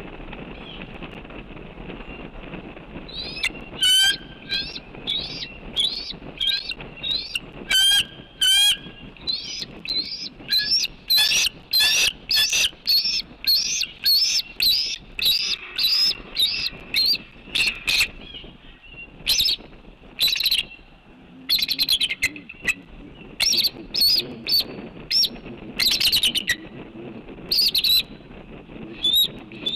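Bald eagle calling at the nest: a long series of short, high, piping chirps, starting about three seconds in and going on in quick runs with brief pauses.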